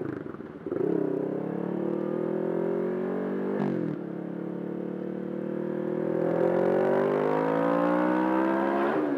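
Kawasaki Ninja 650R's parallel-twin engine pulling away and accelerating, the revs climbing, dropping at a gear change about three and a half seconds in, then climbing more slowly again with another shift near the end.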